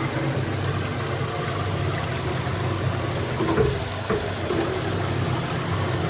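Planer-blade sharpening machine running steadily, its motor humming as the grinding head feeds down toward the first cut on the blades.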